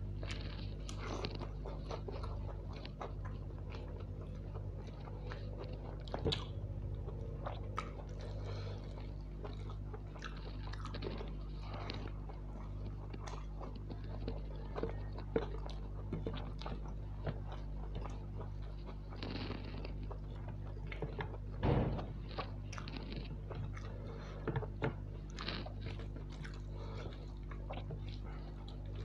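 Close-up chewing and wet mouth sounds of a man eating soya chunk pulao by hand, with many short crisp clicks and a louder burst of them about three-quarters of the way through, over a steady low hum.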